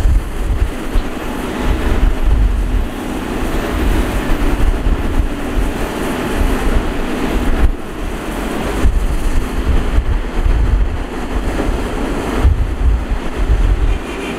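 Diesel engine of a Matador (Shantui) ME315 crawler excavator running steadily under load as it digs and swings to load a dump truck, with a heavy low rumble.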